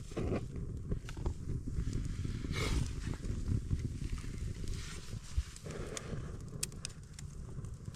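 Wind rumbling on the microphone, with a few sharp knocks and cracks of wood, two of them close together near the end.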